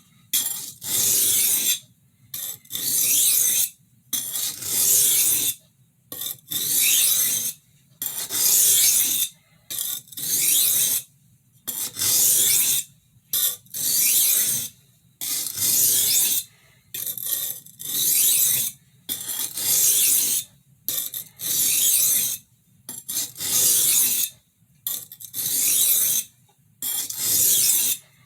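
Steel knife edge stroked across a sharpening stone in a steady rhythm of rasping strokes, about one every one and a half seconds with short pauses between. The stone refines the edge left by a 140-grit diamond plate and takes off its burr.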